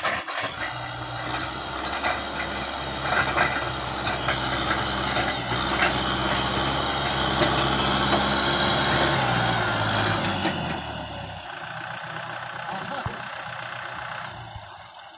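Kubota M6040 tractor's four-cylinder diesel engine running steadily under way, then quietening about eleven seconds in.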